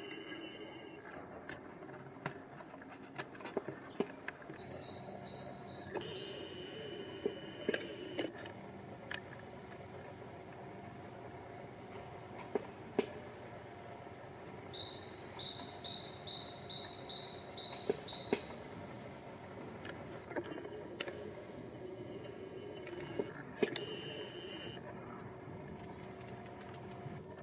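Rainforest insects trilling steadily at a high pitch. Twice a run of short, evenly spaced higher notes joins in: briefly about five seconds in, then about seven notes over three seconds past the middle. Faint scattered clicks sit underneath.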